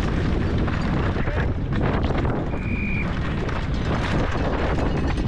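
Downhill mountain bike racing down a loose gravel and rock track at speed: wind rushing over the camera microphone, tyres crunching over stones, and the bike rattling and knocking over the bumps. A brief high-pitched tone sounds about halfway through.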